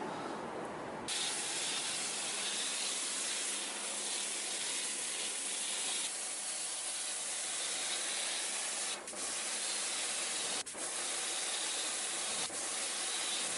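Pressure washer (jet wash) spraying water onto the mud- and silt-caked carpet of a flooded car's interior: a steady hiss that gets louder about a second in, broken by three short cut-offs in the second half.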